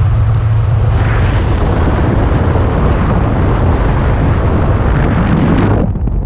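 Motorcycle riding at highway speed: wind rushing over a helmet-mounted camera microphone, with the bike's engine running steadily underneath. The sound begins abruptly.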